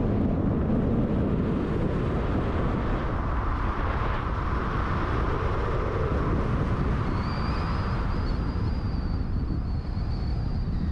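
Car driving on a road: steady engine and road noise, with a faint high whine joining in over the last few seconds.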